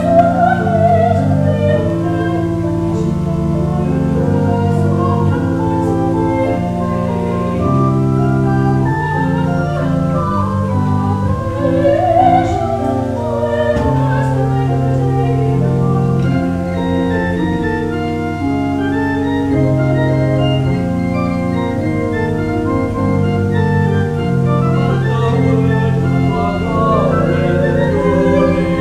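Church organ playing a slow piece of held, sustained chords that change every second or two, with a wavering melody line above them.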